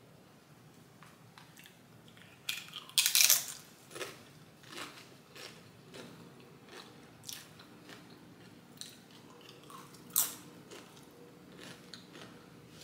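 Tortilla chips crunching as a person bites into them and chews, the chips scooped full of rice. There is a loud crunch about three seconds in and another at about ten seconds, with quieter chewing crackles between.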